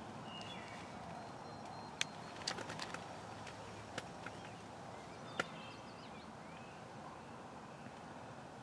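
Faint birdsong from small birds chirping in the field, over a steady background hiss, with several sharp clicks: one about two seconds in, a quick cluster just after, and single ones about four and five and a half seconds in.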